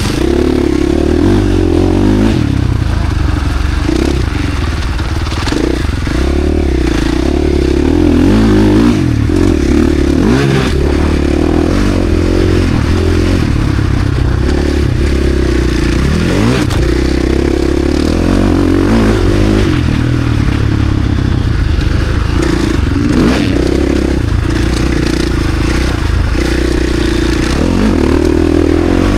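KTM SX-F four-stroke single-cylinder motocross engine being ridden hard, its revs climbing and dropping again and again as the rider opens and closes the throttle and changes gear every few seconds. Knocks and rattles run through it.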